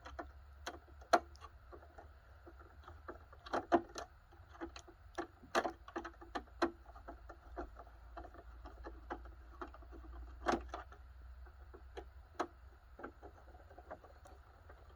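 Irregular clicks, taps and knocks of dehumidifier parts being pried and handled during disassembly, the sharpest about a second in and again about ten seconds in, over a faint low hum.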